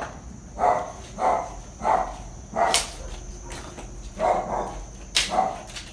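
A dog barking repeatedly, about seven short barks in two runs with a pause in the middle, with a couple of sharp clicks among them.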